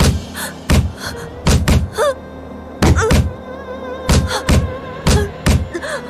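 Wooden staves striking a person's body in a corporal caning: about a dozen heavy thuds in quick, uneven succession as two floggers alternate blows, with a woman's pained cries between them, over a background music score.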